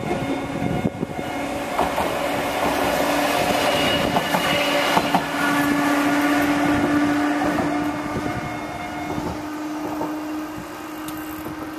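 Train running on rails: a steady rumble with a humming tone that swells over the first several seconds and then slowly eases off.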